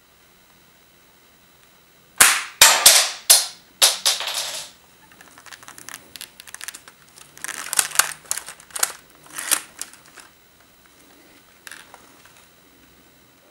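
LEGO brick-built T-5000 sniper rifle model being fired and worked by hand: a quick run of sharp plastic clacks about two seconds in, then scattered clicks and rattles through the middle, and a single click near the end.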